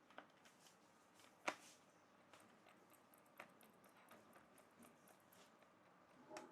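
A few faint clicks and taps of metal parts being handled while bolts are tightened on a fan's base, with one sharper click about a second and a half in.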